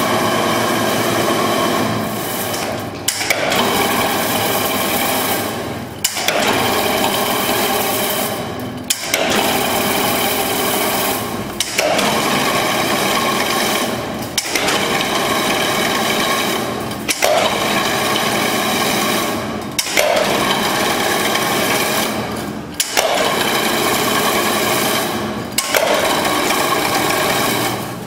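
KMS 1200 semi-automatic spiral wire mesh (chain-link) weaving machine running through repeated cycles about every three seconds: a busy mechanical whirring and rattling, each cycle ending in a brief stop before the next begins.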